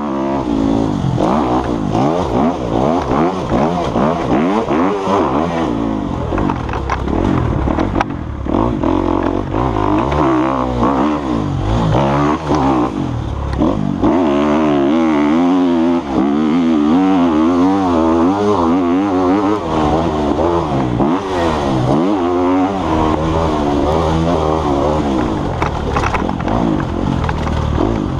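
Dirt bike engine revving up and down while riding, its pitch rising and falling over and over as the throttle is worked and released.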